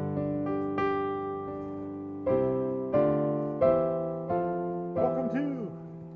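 Background solo piano music: a slow melody of struck notes, each fading after it is played.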